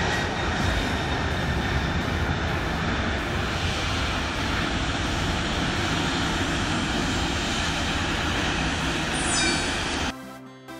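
Three-engine wide-body cargo jet taking off: a steady jet-engine roar at takeoff thrust through the takeoff roll and liftoff. The roar cuts off abruptly about ten seconds in.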